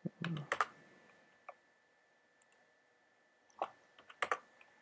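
Computer mouse clicks from placing line endpoints in a drawing program. There are a few quick clicks right at the start, a single click about a second and a half in, and a tight run of clicks about three and a half to four and a half seconds in.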